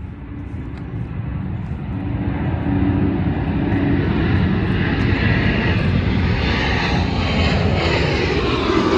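Jet airliner flying past, its engine noise growing louder over the first few seconds and then holding loud, with tones sliding downward in pitch near the end as it goes by.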